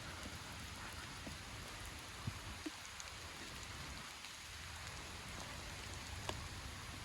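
Steady rain falling, with a few sharp ticks scattered through it.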